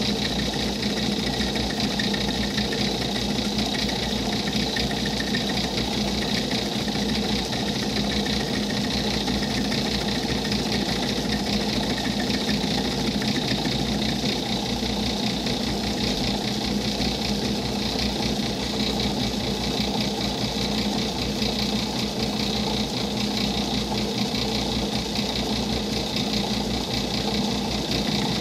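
South Bend lathe running steadily, its spindle turning a 5/8-inch end mill that is milling a V into a metal block held on an angle plate on the cross slide. The machine drones evenly with a steady high whine over it, at a spindle speed the machinist thinks may be a bit slow for this end mill.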